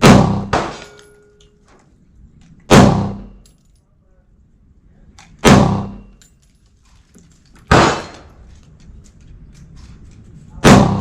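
Five gunshots fired slowly, about one every two to three seconds, each with a short echoing tail, and a fainter crack just after the first.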